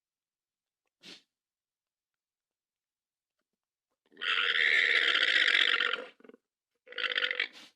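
Hypsilophodon creature sound effect: a brief faint call about a second in, then a loud call lasting about two seconds, then a shorter call near the end.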